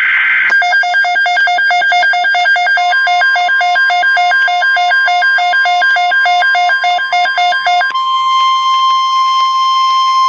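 Emergency weather alert tones. A harsh buzzing SAME data burst ends about half a second in. A rapid alarm beeping follows at about four beeps a second, with the steady Weather Radio warning alarm tone coming in underneath. From about eight seconds in, the warning tone sounds alone, steady and loud.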